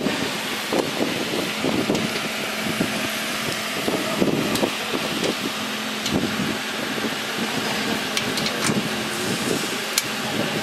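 Steady hiss and hum of running machinery with a faint low tone, with a few sharp metallic clicks and taps as a stainless-steel chute is handled and fitted against a sheet-metal housing.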